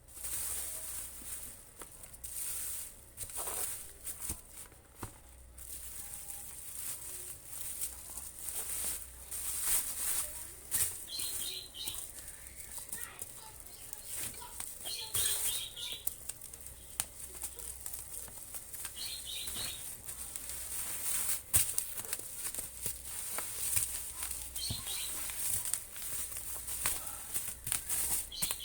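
Hands packing a parcel: plastic wrapping rustling and crinkling in irregular bursts, with scattered clicks and a few light knocks as items and packing material are handled.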